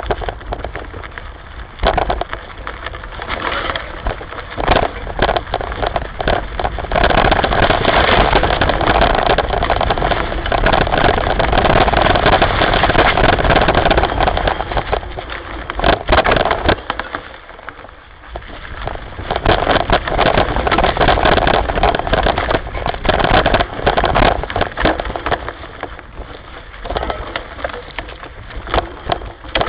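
Dry leaves and brush rustling and crunching as a hiker pushes downhill through pathless undergrowth, with irregular crackles and scrapes. It is loudest in two long stretches, with a lull about halfway through.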